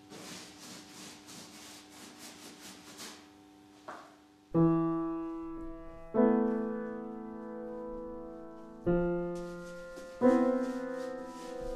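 A paintbrush scrubbing paint on a canvas in quick strokes, about four a second, for the first three seconds. Slow piano chords then come in, each struck and left to ring.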